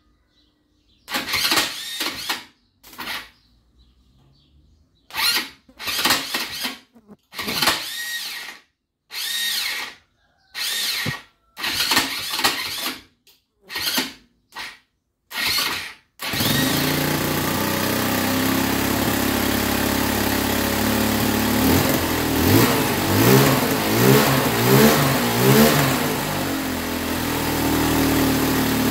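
Linhai ATV engine being cranked on its electric starter in about a dozen short bursts, then catching a little after halfway and running, revved up and down a few times.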